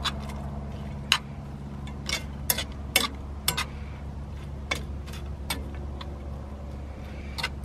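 Metal fork clicking and scraping against a small metal frying pan as spaghetti and pepperoni are tossed: irregular sharp clicks, one or two a second, over a steady low hum.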